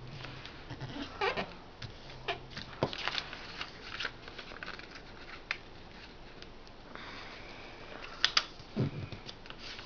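A sheet of paper being folded and creased by hand: rustling with scattered sharp crinkles and crackles, the loudest cluster near the end.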